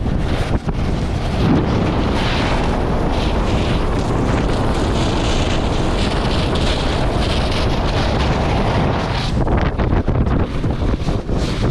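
Wind rushing over an action camera's microphone during a fast descent on snow, a steady low rumble. Over it comes the hiss of edges scraping and carving across packed snow, coming and going.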